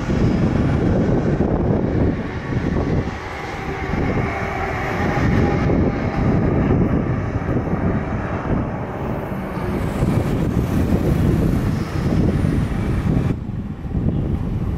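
Jet engines of a Boeing 787-10, Rolls-Royce Trent 1000 turbofans, running at taxi power as the airliner rolls past: a loud, steady rumble with a faint whine above it.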